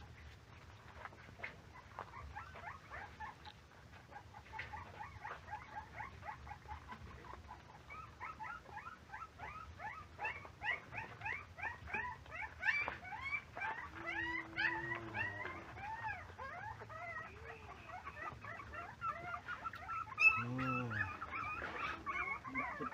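Young puppies whimpering and yipping while they feed together, in quick high squeals that grow busier from about a third of the way in. There is a lower drawn-out whine around the middle and a louder, deeper yelp near the end.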